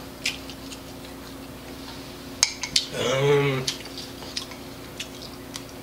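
Chopsticks clicking and scraping against a ceramic rice bowl while eating: a scatter of light, sharp clicks. A short wordless vocal sound from the eater comes about three seconds in.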